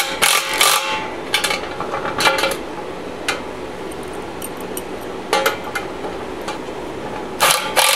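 Scattered metal clinks and taps of steel washers, lock washers and nuts being fitted onto the bolts of a steel cement-mixer drum, over a steady background hiss, louder near the end.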